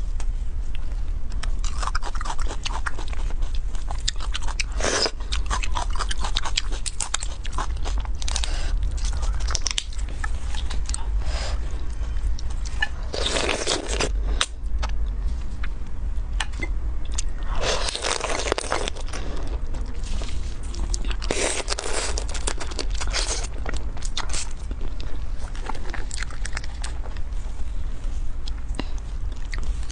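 Close-miked eating of marinated small crabs: crunching and biting through the shells, with wet crackling, sucking and chewing and several louder crunches, over a steady low hum.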